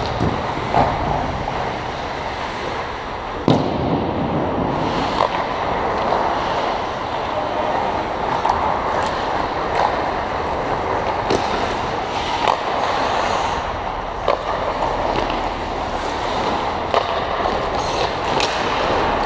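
Ice hockey play on an indoor rink: a steady scraping hiss of skates on the ice, broken by several sharp cracks of sticks striking the puck and the puck hitting the boards.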